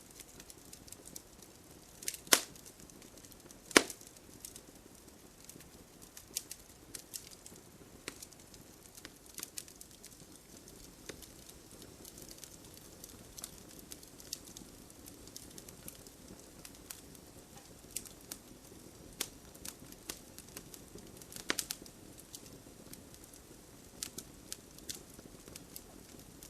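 Wood campfire crackling, with scattered sharp pops and snaps over a soft steady background. Two loud cracks come about two and four seconds in, and a quick cluster of pops comes near the end.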